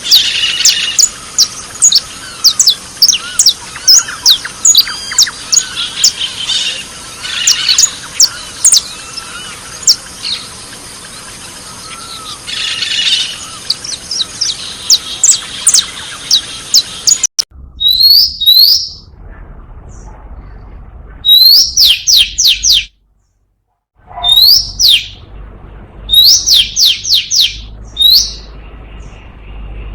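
Small birds chirping: a dense run of many quick, high chirps over a steady hiss. Then, after an abrupt cut, come separate bursts of a few sharp downward-sliding chirps with short pauses between them.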